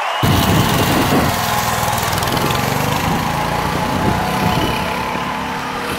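Small single-cylinder petrol engine of a homemade go-kart running, starting abruptly about a quarter second in and revving as the kart pulls away.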